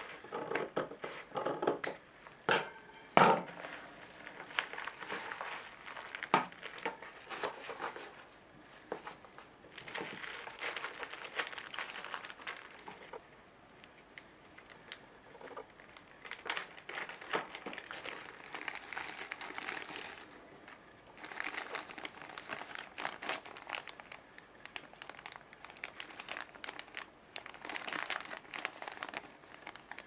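Scissors snipping open a plastic mailer, with a few sharp snips near the start, followed by long stretches of crinkling and rustling plastic as the mailer and small zip-lock bags are handled and opened.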